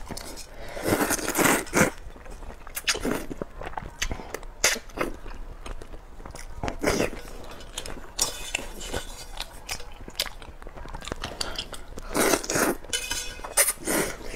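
A person slurping rice noodles out of a chilli broth with chopsticks and chewing between mouthfuls: a string of separate slurps a second or two apart, the biggest about a second in and again near the end.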